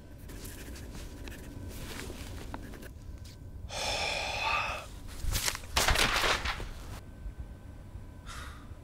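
A young man sighing heavily about four seconds in: a long, breathy exhale. It is followed by a few more loud, breathy bursts of breath.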